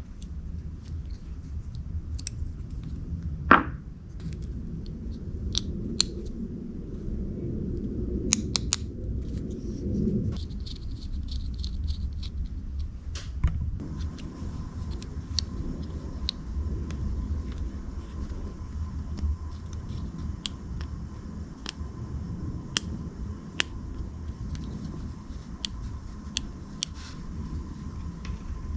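Scattered sharp clicks and taps of small hand tools and parts being handled over a steady low rumble. About halfway through, a faint steady high whine joins in.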